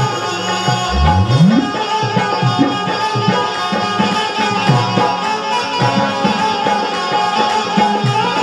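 Bundeli Rai folk dance music played live: a quick hand-drum rhythm under a sustained melody line, without singing. A deep drum stroke swoops up in pitch about a second in.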